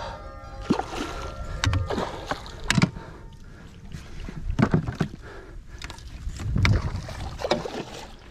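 A hooked redfish thrashing and splashing at the surface beside a small boat while a landing net is dipped at it. About half a dozen irregular splashes come over a low steady rumble.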